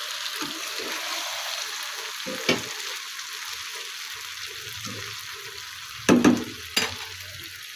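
Sliced potatoes and tomatoes sizzling in a non-stick wok as they are stirred with a wooden slotted spatula, the potatoes now cooked through. A few knocks and scrapes of the spatula against the pan, a brief one about two and a half seconds in and the loudest pair about six seconds in.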